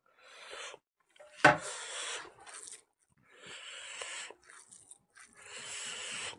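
Close-up eating sounds: a bare hand squishing and mixing rice with pork in pig blood and fat, and mouthfuls chewed with lip smacking, coming in bursts of about a second. A single sharp clack about one and a half seconds in is the loudest sound.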